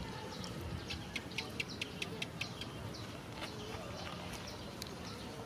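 Outdoor ambience with a bird chirping: a quick run of short, high chirps, about five a second, starting about a second in, then a few scattered chirps later.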